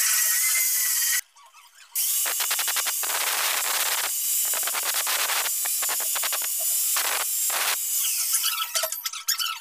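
Angle grinder with an abrasive disc grinding down the end grain of a wooden chopping block: a loud, hissy grinding that stops suddenly about a second in and resumes, pulsing as the disc bites into the wood, then turns uneven near the end.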